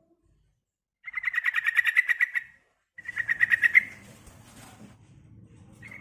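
Female yellow-vented bulbul (trucukan) calling in two rapid chattering phrases of fast, evenly repeated notes, the second shorter. A third phrase begins right at the end. This is the female's call to a male.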